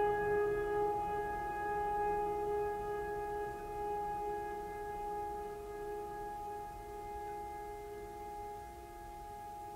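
Ambient background music: a held chord of sustained tones, slowly fading.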